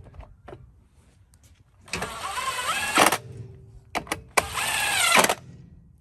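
Cordless impact driver running in two bursts of about a second each, driving in the 5/16 bolts that hold the recoil starter on a Briggs & Stratton mower engine.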